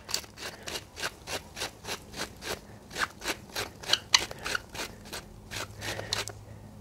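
Hand salt mill being twisted, grinding salt in a quick, even rhythm of short grinding strokes, about four a second.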